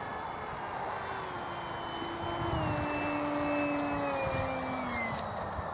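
Electric motor and pusher propeller of a Bixler 1 radio-controlled foam plane whining as it flies close by, getting louder then fading, its pitch falling in steps.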